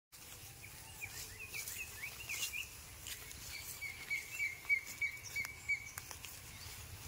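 Birds calling outdoors: a few short rising chirps, then one bird repeating a single note about four times a second for around two and a half seconds. A few faint clicks are heard over a low background.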